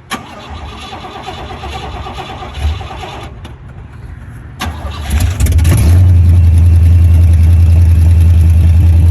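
Oldsmobile 350 Rocket V8 being cranked over on the starter, then catching about five seconds in and settling into a loud, steady run. It runs through open long-tube headers with no exhaust fitted.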